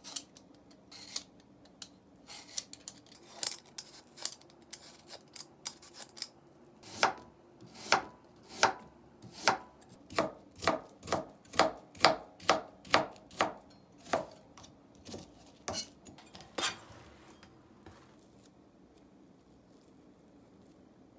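Kitchen knife chopping food on a cutting board: light, scattered taps at first, then a steady run of chops about two a second from about a third of the way in, thinning out and stopping about three-quarters through.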